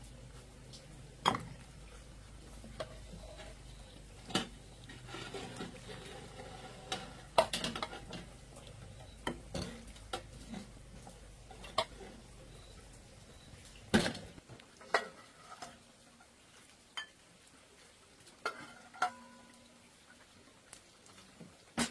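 Kitchen work: scattered clinks and knocks of utensils against pots and dishes, over a low steady hum that stops about two-thirds of the way through.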